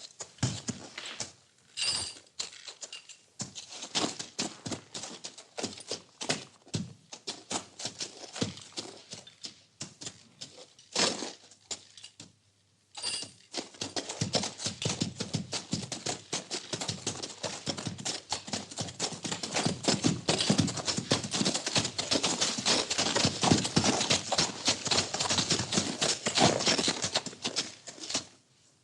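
Horses moving in a stable: hooves clopping and shuffling, with many quick knocks and rustles. After a short pause about twelve seconds in, the knocks come denser and louder.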